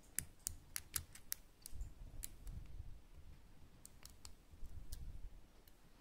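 Lock pick clicking against the pins of an ABUS Titalium pin-tumbler padlock held under light tension, during picking. There is a quick run of sharp clicks in the first second and a half, then a few scattered single clicks over faint handling noise.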